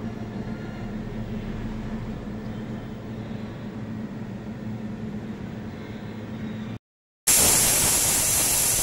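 A steady low hum, then about seven seconds in a loud, even hiss of steam escaping through an aluminium pressure cooker's weight valve: the cooker giving a whistle under full pressure.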